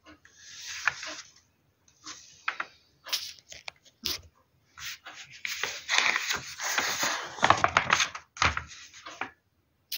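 Glossy paper pages rustling and crinkling in several bursts as a magazine is leafed through and a fold-out spread is opened, the longest stretch of handling coming in the second half.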